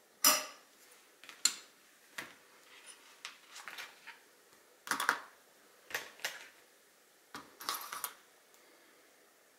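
Irregular metal clicks and clinks as a riflescope and scope-mount rings are handled and fitted together, the loudest one just after the start.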